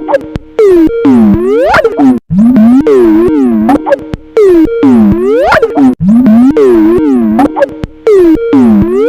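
The Skype ringtone looping loud and heavily warped: its notes swoop down and back up in pitch instead of holding steady. The pattern repeats about every four seconds.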